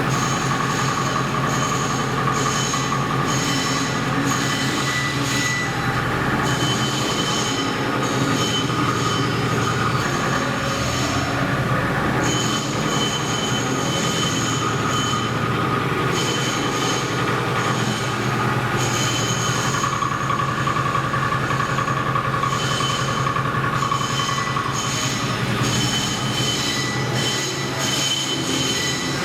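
Milling machine cutting a stamping die: a steady metallic cutting squeal with several high whining tones over the machine's running hum, the highest tone coming and going every few seconds.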